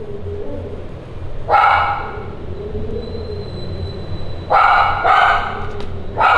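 An animal calling in four drawn-out cries, the first about a second and a half in and three close together near the end, over a low steady hum.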